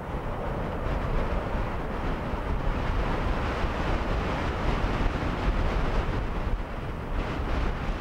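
Strong wind rushing across the microphone: a steady low rumbling noise, slightly louder from about a second in.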